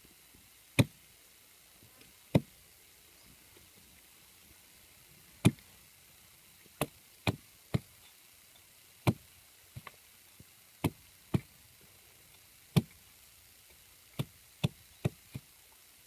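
Small hatchet chopping and notching a wooden stick: about fifteen sharp, separate chops at uneven intervals, several coming in quick pairs.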